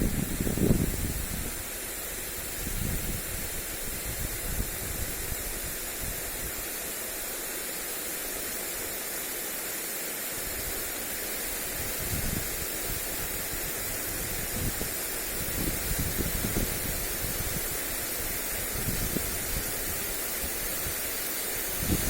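Lawn sprinkler spraying water onto grass: a steady, even hiss of falling spray. Gusts of wind buffet the microphone now and then, as low rumbles near the start and again through the second half.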